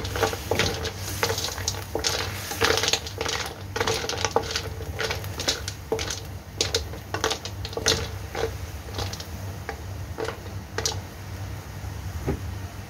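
Snail shells stirred in a wok with a wooden spatula: irregular clicks and clacks of shell on shell and on the pan, a few a second, thinning out near the end. A steady low hum runs underneath.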